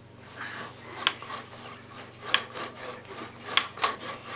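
Baby bouncer creaking and rubbing on its straps and spring as the baby bounces, with a sharp creak or knock at several of the bounces, roughly one a second, two close together near the end.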